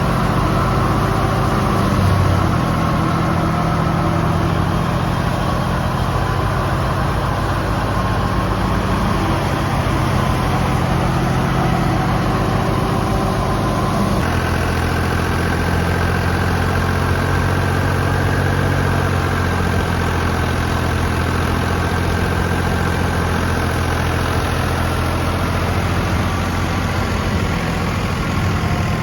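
Engine-driven wheat thresher running steadily, with a constant engine hum beneath the machine's noise. The engine note changes abruptly about halfway through.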